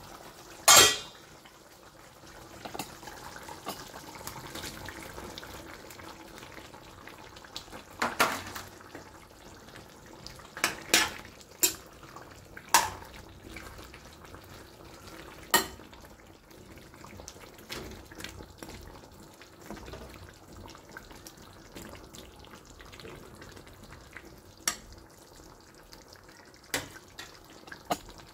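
A steel ladle clanks and scrapes against a stainless-steel kadai as mushrooms are stirred into the simmering chicken gravy: about ten sharp knocks at uneven intervals, the loudest just under a second in. Between the knocks the gravy gives a soft sizzle.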